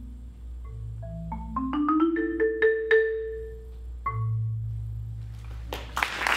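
Concert marimba played with mallets: a quick run of struck notes climbing in pitch, then a final low note that rings out. Applause breaks in near the end.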